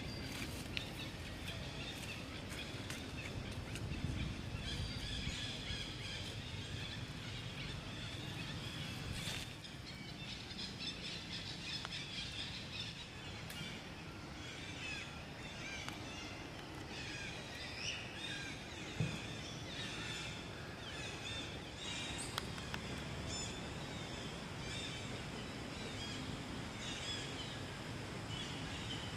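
Outdoor ambience with birds chirping throughout, over a low steady background noise, and a few sharp clicks.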